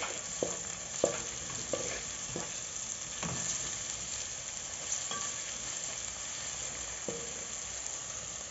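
Onions, ginger and garlic sizzling in hot oil in a metal sufuria while being stirred, the utensil knocking against the pot about half a dozen times, some knocks leaving a short metallic ring.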